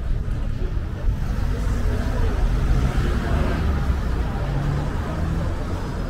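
Road traffic on a city street: cars passing over a steady low rumble, swelling as a vehicle goes by in the middle.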